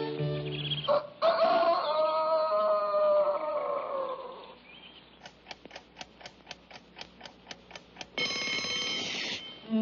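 Cartoon sound effects. A long call falls in pitch and fades. A clock then ticks about four times a second, and near the end an alarm clock bell rings for about a second.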